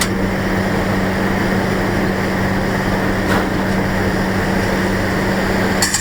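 1986 Ford F-350 with a 460 V8 driving along, a steady engine hum with road noise, and a short clatter right at the end.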